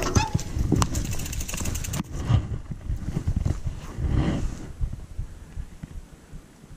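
Mountain bike going down on a rocky trail: a burst of clattering knocks and scrapes, with a rapid run of ticks about a second in and more knocks, lasting about four and a half seconds.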